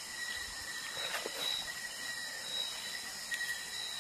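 Night insects chirring: a thin, steady high buzz that swells gently about once a second. A couple of faint rustles of leaves are heard underneath.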